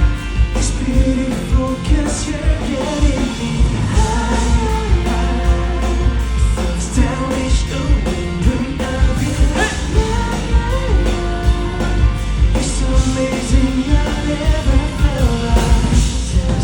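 Loud live band music with a singer over it: drums and bass keeping a steady, driving beat.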